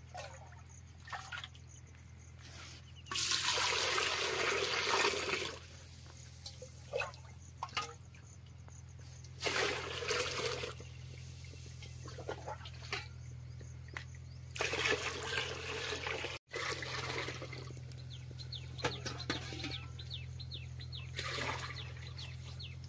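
Water splashing and pouring in steel pots and a bucket, in four bursts a few seconds apart with the first one the longest and loudest, and light metal clinks between.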